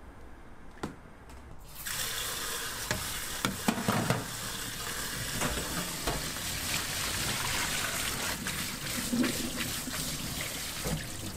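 Kitchen tap running into a stainless-steel sink, splashing over a metal pot and a mesh strainer as boiled chicken feet are rinsed. The tap comes on about two seconds in, after a few soft clicks, and metal knocks and clinks of the pot and strainer being handled are heard under the flow.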